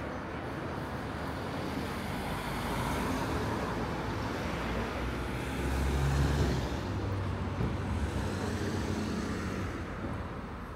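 A motor vehicle passing on the road, its engine and tyre noise swelling to its loudest about six seconds in, then fading away.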